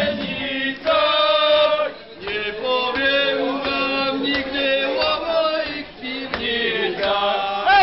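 Several men singing a song together, with long held notes.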